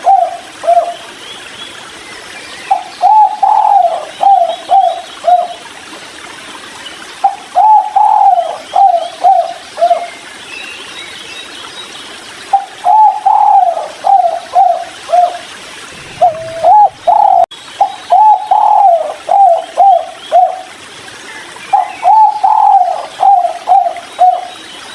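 Spotted dove (tekukur) cooing: phrases of a longer opening coo followed by about three short, quick coos (the "kuk 3" rhythm), repeated every four to five seconds. Faint chirps of small birds sound between the phrases.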